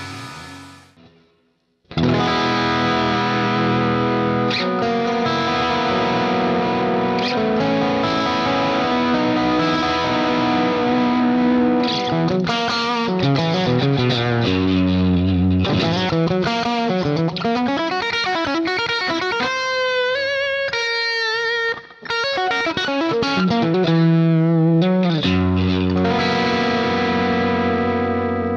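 An intro jingle fades out, then a distorted electric guitar (Ibanez, through a multi-effects unit) plays a solo passage of fast runs and bent, wavering held notes. It is strung with Ernie Ball Regular Slinky strings about six months old.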